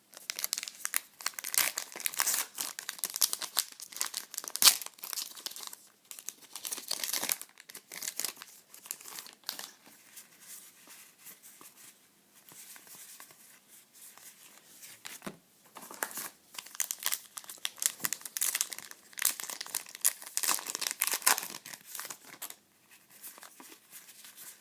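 Trading card pack wrappers being torn open and crumpled in the hands, in two spells of dense crinkling with a quieter stretch of lighter rustling between.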